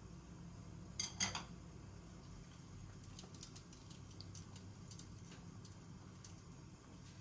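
Wooden chopsticks clicking and tapping against a pot and glass noodles in broth, in scattered light ticks, after two sharper knocks about a second in. A low steady hum runs underneath.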